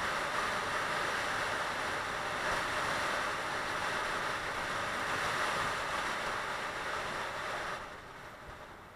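Wind rushing over a motorcycle-mounted camera's microphone at road speed, a steady hiss with no engine note standing out. It drops off noticeably about eight seconds in as the bike slows behind traffic.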